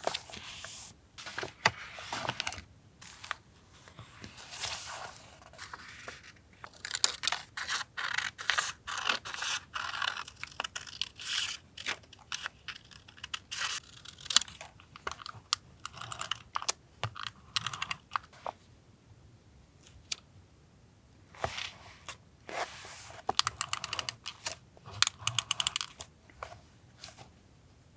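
Paper being handled and torn for collage journaling: bursts of crackling rustle and tearing with many small sharp taps, with brief lulls between.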